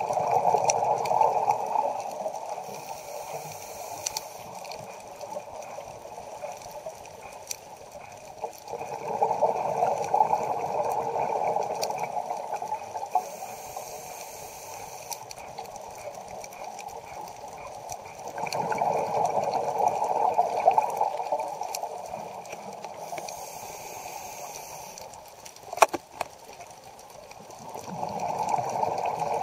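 A scuba diver breathing through a regulator underwater: a gurgling rush of exhaled bubbles lasting about three seconds, coming about every nine seconds, with a softer hiss of inhaling in between. There is one sharp click near the end.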